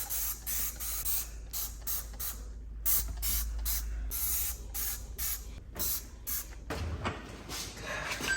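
Trigger spray bottle of bleach cleaner squirted again and again: a rapid run of short hissing sprays, about three a second.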